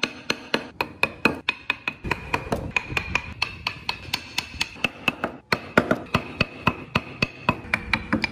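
A wood chisel being struck with a mallet while carving into solid wood: rapid, even taps at about four a second, with a short break about five seconds in.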